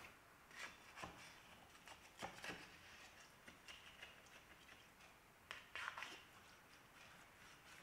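Faint scrapes and clicks of a large kitchen knife cutting down through baked pasta and its crispy cheese crust, the blade touching the stainless steel pan, in several separate strokes with the loudest near the end.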